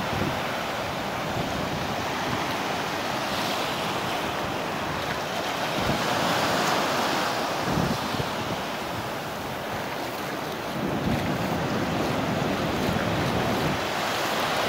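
Ocean surf: waves breaking and foamy wash rushing up and over the sand, swelling louder about halfway through, with wind buffeting the microphone.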